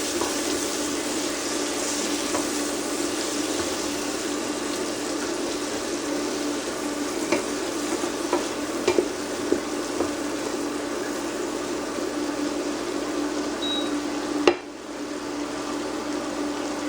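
Sliced zucchini and squash frying in olive oil and butter in a pan on a portable induction cooktop: steady sizzling, with a few light clicks of stirring against the pan. A steady low hum runs underneath. The sizzle drops briefly about two-thirds of the way through.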